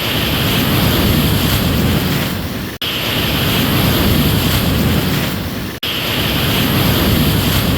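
Ocean surf noise, a steady rush that is heaviest in the low end. It cuts out abruptly for an instant about every three seconds, twice here.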